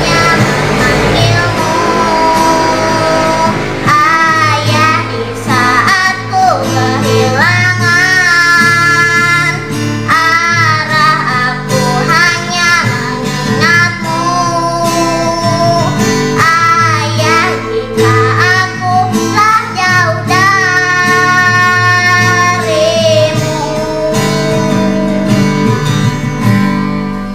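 A young schoolchild singing a solo ballad with wavering vibrato over a karaoke backing track, the last phrase a long held note that fades out near the end.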